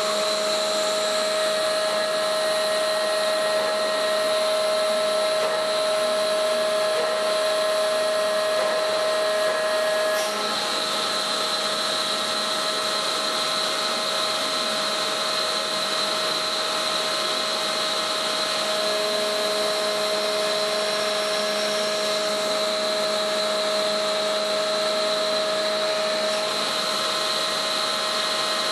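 Hydraulic winch test stand running: the pump and hydraulic drive give a steady mechanical whine of several held tones over a rushing noise. The tones shift about ten seconds in and again a little before twenty seconds as the load on the winch changes.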